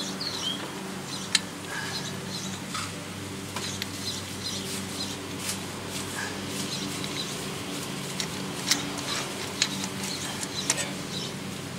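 Scattered light metallic clicks and taps from the parts of a brake caliper wind-back tool being handled and fitted against the caliper, over a steady low background hum.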